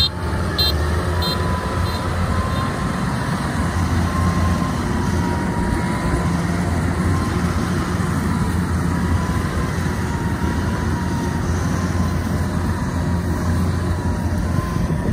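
Engines of a tracked rice-hauling carrier loaded with sacks and a Kubota DC-93 combine harvester running steadily, with a thin steady whine over a low drone.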